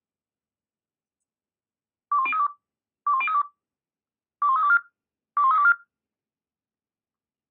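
Radio alerting tones from the dispatch centre's alarm: four short bursts of quick stepping beeps, each a five-tone selective-call sequence that sets off the units' pagers. The first two bursts are alike and the last two alike.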